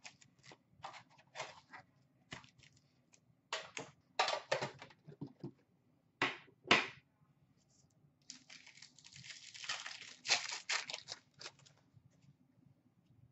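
Upper Deck hockey card packs being handled: a run of short, sharp crinkles and taps as packs come out of the box and are stacked on a glass counter. About eight seconds in comes a longer crinkling rip as a pack wrapper is torn open.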